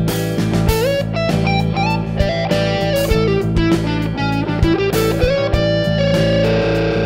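Distorted electric guitar playing a lead lick in the A Mixolydian pentatonic scale over a backing track with drums and bass on an A7 chord. The line includes slides up to notes, and a note or double stop is held near the end.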